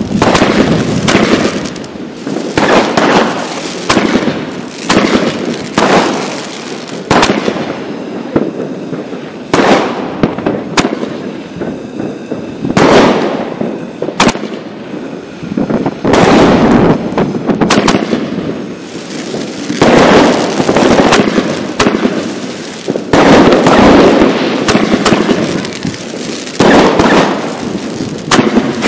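A firework battery (cake) firing: a long, irregular run of loud bangs, often one or two a second, with crackle between them and a somewhat quieter stretch in the middle.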